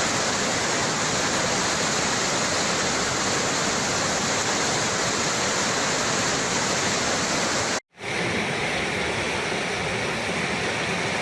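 Steady rushing of floodwater. It cuts out abruptly about eight seconds in and comes straight back with a brighter, hissier tone.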